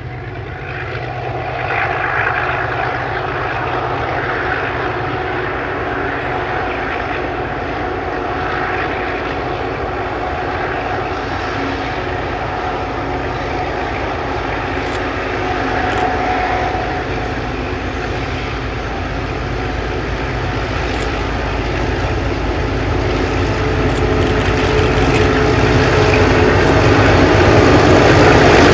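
Diesel freight locomotives with EMD and ALCO engines working hard as a loaded grain train climbs a grade. The engine drone grows steadily louder as the units approach and is loudest near the end.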